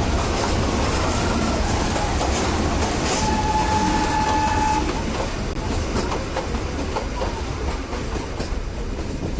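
Nilgiri Mountain Railway train running on the track, heard from aboard, with steady rumble and wheel clatter. Its horn sounds once, a single held note about three seconds in lasting about a second and a half.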